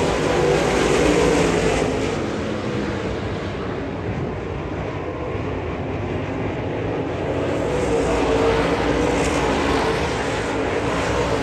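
Dirt late model race car engines running at racing speed, the sound easing off a few seconds in and building again after about eight seconds.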